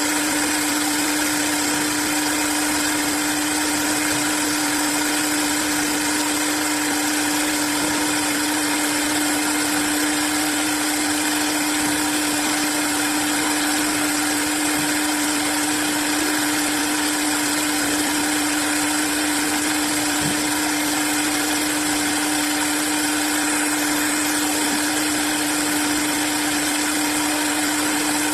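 Industrial CNC wood-turning lathe running: a steady machine whir with a constant hum, unchanging throughout.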